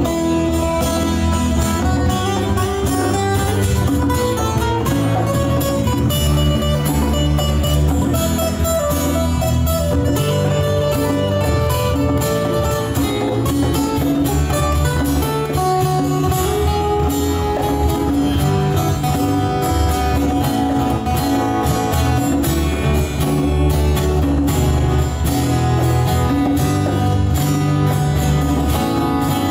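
Live acoustic band playing: two strummed acoustic guitars over an electric bass guitar, with hand-played congas.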